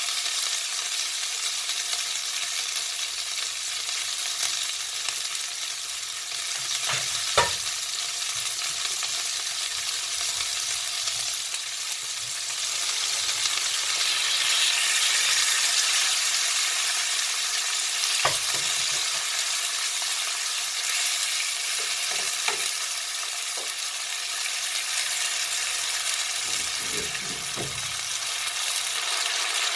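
Food sizzling steadily in a hot frying pan, with a few sharp knocks of a utensil against the pan.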